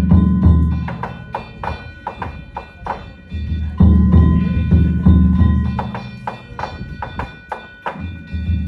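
Danjiri festival music (narimono): hand gongs struck in a quick, steady rhythm with a ringing tone, and a big taiko drum beating in two stretches, dropping out in between.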